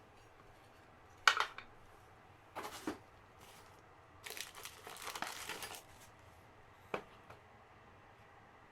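Packaging being handled and opened: crinkling and tearing in a few short bursts, with a sharp snap about a second in, a longer rustle around the middle and a click near the end.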